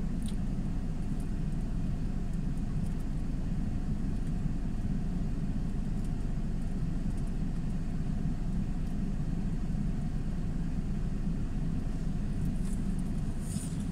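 Steady low rumble of a car, heard at an even level with no single event standing out.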